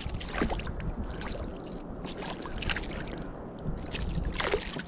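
Water sloshing and splashing beside a kayak as a small hooked snook thrashes at the surface, with several short splashes, the strongest near the end.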